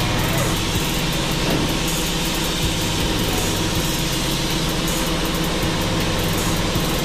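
Background music with a steady beat: quick regular ticks up high over bass notes that change about once a second.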